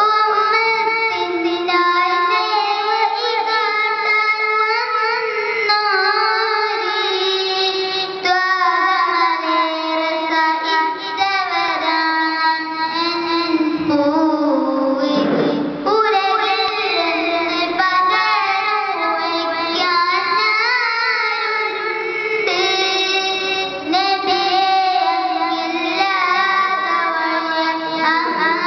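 A boy singing a Malayalam devotional song in praise of the Prophet, solo into a microphone, in long wavering melodic lines.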